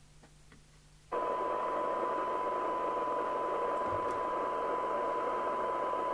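Radiomobile CB202 CB radio's loudspeaker cuts in about a second in with a steady test tone over a bed of hiss. This is the receiver picking up a weak tone-modulated signal from a signal generator for a 12 dB SINAD sensitivity check.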